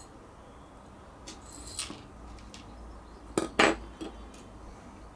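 Small hard parts being handled during reassembly: a few separate light clinks and taps, the loudest two close together about three and a half seconds in.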